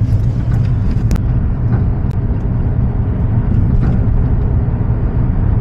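Steady low rumble of a car's engine and tyres heard from inside the cabin while driving, with a faint click about a second in.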